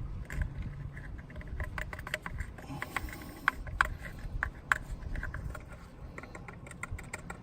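Light irregular clicking and scraping of a small tool working liquid epoxy into a crack in a plastic pool skimmer, with a low rumble beneath.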